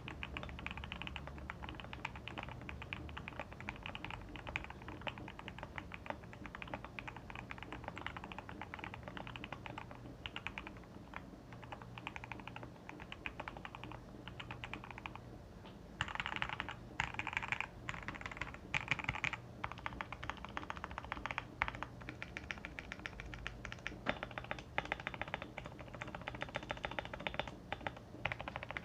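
Typing on a modded GMMK Pro mechanical keyboard fitted with lubed Akko Princess and Akko Demon switches, Durock v2 stabilizers, tape mod and PE foam. The keystrokes come as a dense, continuous clatter, with louder bursts of keys about halfway through and again near the end.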